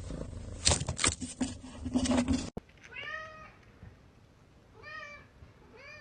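Loud irregular knocking and scraping, then after a sudden cut a cat meowing three times in short, quieter calls.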